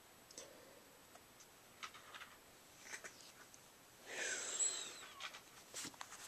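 Faint scattered rustles and clicks, then about four seconds in a brief kitten mew lasting under a second, with a gliding pitch.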